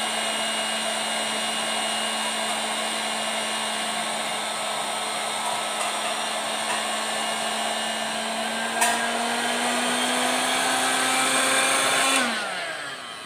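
SG668A electric inflator/deflator pump running in deflate mode, sucking the air out of an inflatable pool ring with a steady hum and a rush of air. A short click comes a little before nine seconds. The pitch and level then creep up slightly until the pump is switched off about twelve seconds in and winds down.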